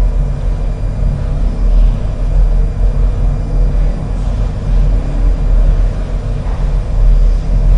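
Steady low rumble, the kind a running vehicle engine makes, with a faint hum on top.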